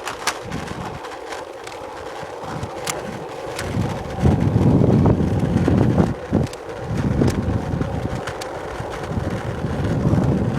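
Wind buffeting the microphone in gusts, loudest about four to six seconds in, with scattered light clicks.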